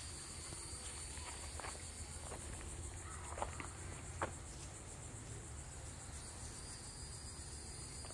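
Steady high-pitched insect chorus, several pitches humming at once, with a few soft footsteps or ticks in the first half.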